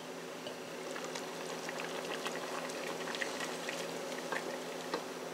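Pot of chicken broth with vegetables bubbling on the stove, a steady patter of small pops, with a spoon stirring through it.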